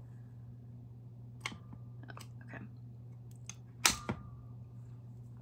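Plastic clicks and crackles from a Happy Planner disc-binding hole punch that is jammed and being worked free, with a sharp snap about four seconds in. A steady low hum runs underneath.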